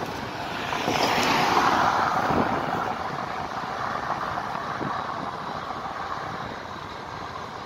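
Road traffic noise heard from a moving motorcycle: a steady rush that swells about a second in and eases off over the next few seconds.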